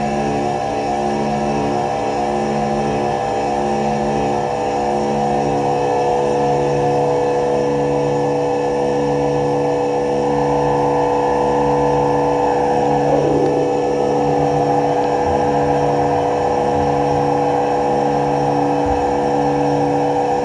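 Experimental electronic drone music: many held tones layered over a low hum that swells and fades in a steady pulse, with a tone sliding downward about thirteen seconds in.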